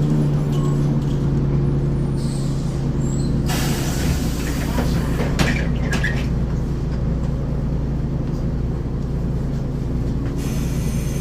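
1994 Ikarus 435 articulated bus with ZF gearbox, its diesel engine running at steady revs after the pitch drops just at the start. A burst of hissing noise comes in about three and a half seconds in and lasts a couple of seconds.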